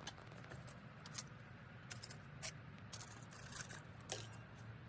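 Scattered light clicks and scrapes of small hard pieces of kiln slag and porcelain being handled and set against each other, a few sharp ticks spread irregularly over a low steady hum.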